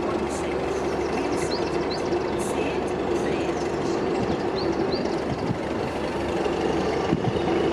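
Heritage mainline diesel locomotive standing and idling, its engine giving a steady, even drone.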